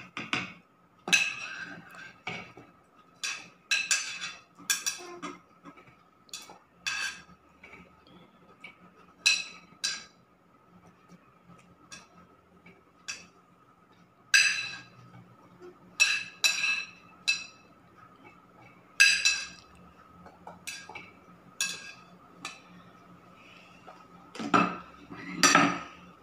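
A spoon clinking irregularly against a plate and a glass jar as chopped green chillies are spooned into the jar, with a couple of heavier knocks near the end.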